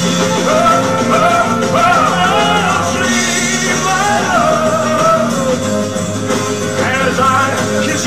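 A ballad playing, with a man singing into a handheld microphone over the backing music.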